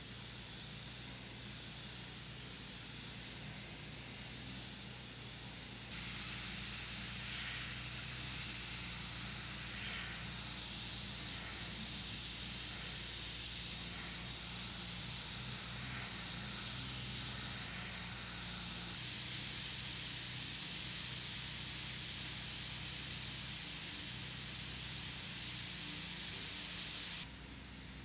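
Richpen 213 airbrush with a 0.3 mm nozzle spraying paint, a steady hiss of compressed air. The hiss gets abruptly louder a few times and drops back just before the end.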